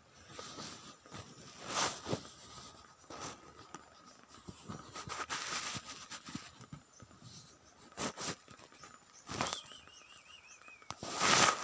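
Cat's fur brushing and rubbing against the phone's microphone, giving irregular rustles with several louder scrapes. A short wavering chirp that falls in pitch comes about two-thirds of the way through.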